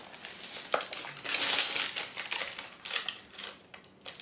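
Paper rustling and crinkling as a receipt and shoe packaging are handled, with a few light clicks and taps, loudest about a second in.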